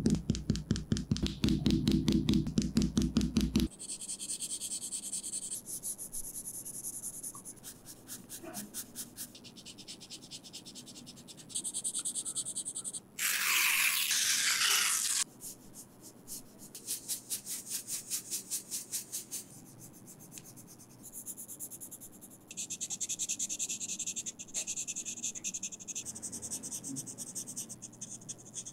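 Time-lapsed drawing sounds: graphite pencils and a kneaded eraser scratching and rubbing on paper in fast, even strokes. About halfway through comes a louder two-second rasp as masking film is cut and lifted from the paper with a craft knife.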